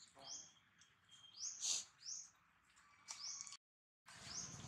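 A bird calling repeatedly: short, high rising chirps every half second or so, one of them louder about the middle. The sound drops out completely for a moment near the end.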